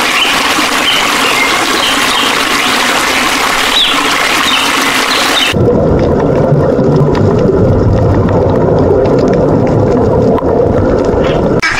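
For the first half, a steady hiss with short high chirps; about halfway it cuts sharply to underwater ambience: a dense low rumble with water gurgling.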